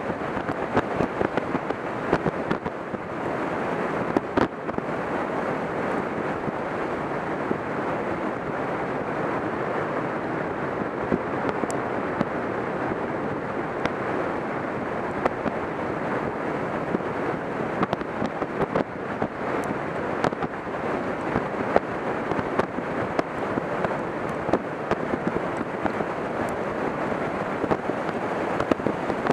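Heavy rain falling steadily: a dense, even hiss with many sharp ticks of drops striking throughout.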